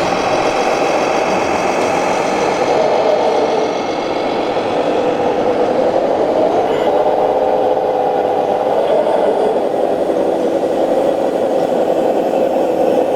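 Simulated engine sound from a scale RC model vehicle's sound module, running steadily with its pitch rising and falling as the revs change.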